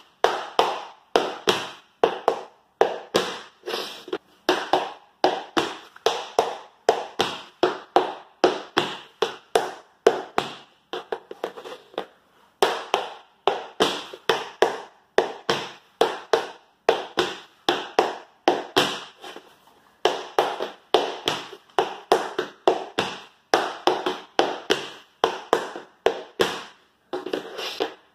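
Tap shoes with metal plates on a wooden floor, repeating the 4-beat tap riff (brush, scuff, dig, toe): quick groups of sharp clicking taps with short breaks between them.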